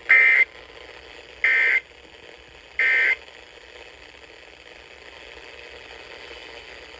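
Emergency Alert System end-of-message data tones over the radio: three short buzzy bursts about 1.3 seconds apart, signalling the end of an alert broadcast. Faint steady radio hiss follows.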